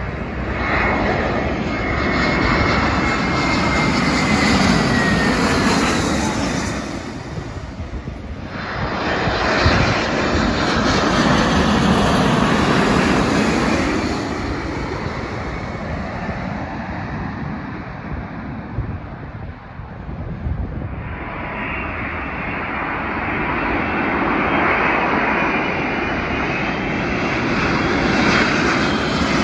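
Jet airliners passing low one after another: first a British Airways Airbus A321, whose engine whine falls in pitch as it goes by; then an American Airlines Boeing 787 on approach with its gear down, swelling and fading; and near the end an Emirates Airbus A380 approaching as the noise builds again.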